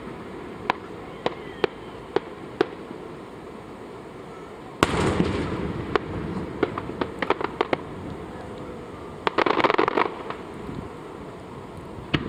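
Aerial fireworks going off: a few sharp single bangs in the first three seconds, then a louder burst about five seconds in followed by scattered cracks, and a dense run of rapid cracks near ten seconds.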